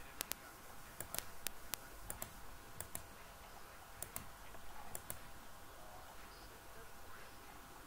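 Computer mouse button clicking about fourteen times, many of the clicks in quick pairs and most of them in the first five seconds, with a faint steady hum beneath.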